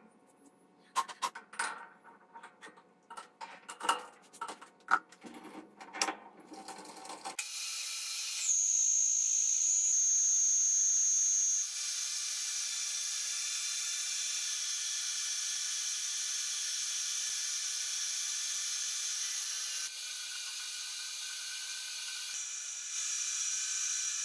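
Scattered metal clicks and knocks as a steel rod is fitted into a metal lathe's three-jaw chuck. About seven seconds in, the lathe starts turning down the steel rod: a steady cutting hiss, with a high whine for a few seconds shortly after it begins.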